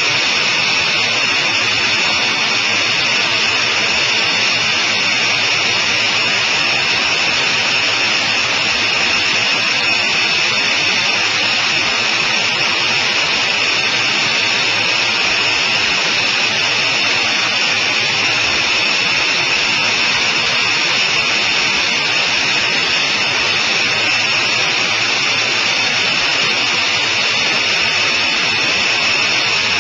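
Engine and rushing wind heard from the cockpit of a Sonerai I single-seat light aircraft in flight: a loud, unbroken drone that holds steady at cruise power.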